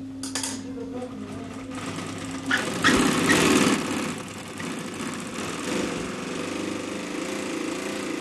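Leather-bag maker's sewing machine running, loudest in a burst of stitching about three seconds in, then running on more quietly.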